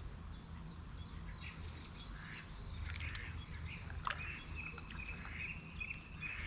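Small birds chirping faintly over a low outdoor rumble, with a sharp click about four seconds in and a thin steady whistle over the last two seconds.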